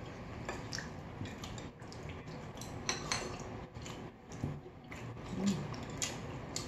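Cutlery clinking and scraping against plates and bowls during a meal: scattered light clicks at irregular intervals.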